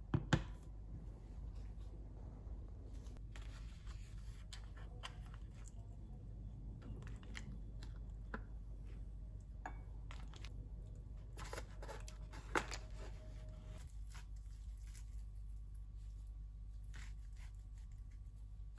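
Kitchen food-prep handling: a tin can knocks twice as it is set down at the start. Scattered light taps, clicks and crinkles follow as raw chicken is handled in a plastic tray and laid on a wooden cutting board, with a steady low hum underneath.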